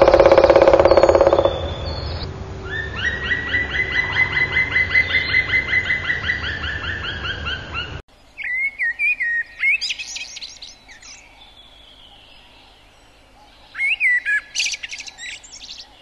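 Hawfinch calls. A loud buzzy sound for the first second and a half is followed by a rapid run of repeated chirps, about six a second, lasting several seconds. After that come two short bursts of sharp, high chirps.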